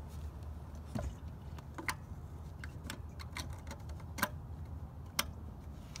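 Scattered sharp plastic clicks and taps, about a dozen at irregular intervals, as a fuel can spout is handled and the filler cap is put back on a small engine's plastic fuel tank. A low steady rumble runs underneath.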